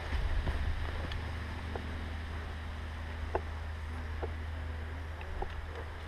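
A steady low rumble on the microphone, of the kind wind or camera movement makes, with a scattering of faint separate clicks or ticks.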